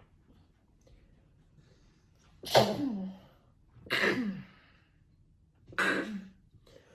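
A person sneezing three times in quick succession, set off by a nasal swab in the nose. Each sneeze starts sharply and ends in a cry that falls in pitch.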